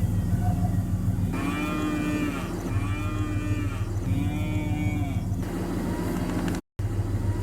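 Angus-cross calves mooing: three drawn-out calls in a row, each rising and then falling in pitch, over a steady low hum. The sound cuts out briefly near the end.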